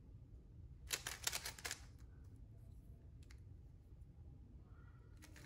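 Plastic layers of a bandaged 3x3 puzzle cube, a QiYi Warrior S glued into a Nightmare Bandage Cube, being turned by hand: a quick run of light clicks about a second in, then a couple of single clicks, over a low steady hum.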